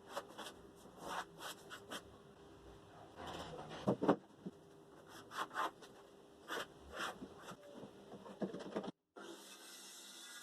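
Irregular short scraping and rubbing strokes on wood, a dozen or so, of uneven length and spacing. About nine seconds in they cut off abruptly, giving way to a steady background with faint held tones.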